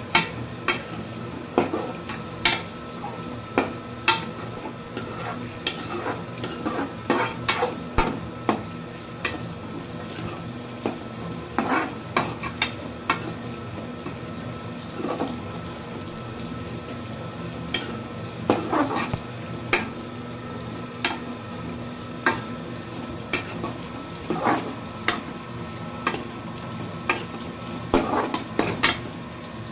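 A metal spoon scraping and clinking against an aluminium kadai as amaranth greens are stirred and stir-fried, in irregular bursts of strokes, over a light steady sizzle.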